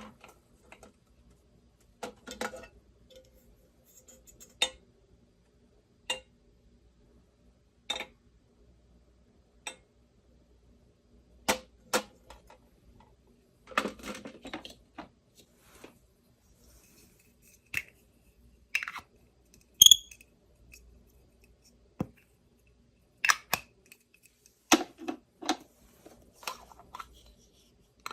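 Miniature steel toy kitchenware and its packaging being handled and set down: separate light clicks and taps every second or two, one of them about two-thirds of the way through ringing briefly like small metal.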